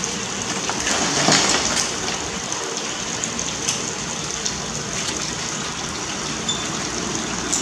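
Steady rush of water, with a few faint clicks scattered through it.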